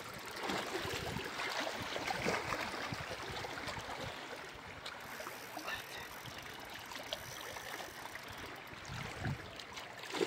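Small lake waves lapping and gurgling against shoreline rocks, an irregular splashing wash.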